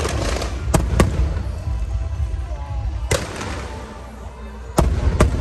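Fireworks going off: five sharp bangs at uneven spacing, two close together about a second in and two more near the end, over a steady noisy background.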